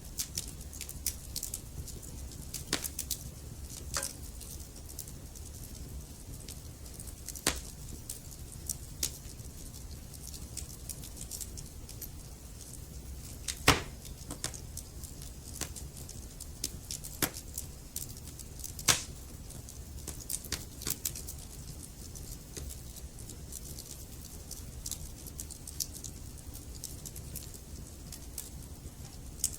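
Wood fire burning in a fireplace: a steady low rumble of flame under scattered crackles, with sharper pops from the logs, the loudest about 14 and 19 seconds in.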